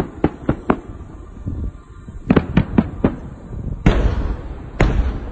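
Aerial fireworks bursting: a quick run of sharp cracks, another cluster of cracks a couple of seconds later, then two heavy booms about a second apart, each followed by a rolling rumble.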